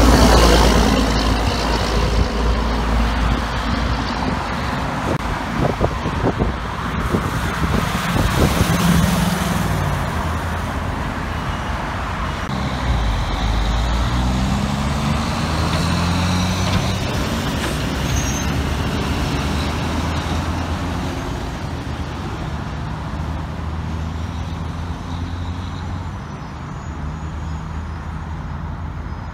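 Heavy diesel dump truck engines passing one after another. A Mack dump truck goes by loudly at the start, then a line of Kenworth dump trucks pulls away with engine pitch rising as they go up through the gears, over steady road traffic.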